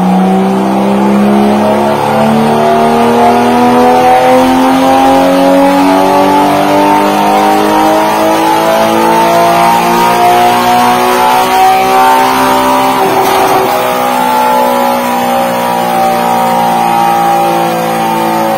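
Porsche Cayman 981's flat-six engine running through an Armytrix valvetronic exhaust under load on a chassis dyno. The engine note climbs slowly and steadily in pitch for about twelve seconds as the revs build. A short rough burst comes about two-thirds of the way through, after which the pitch holds and eases slightly.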